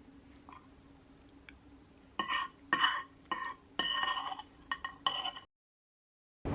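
About six sharp, ringing clinks of crockery or glassware over roughly three seconds, like dishes or cutlery being set down or handled. The sound then cuts out suddenly.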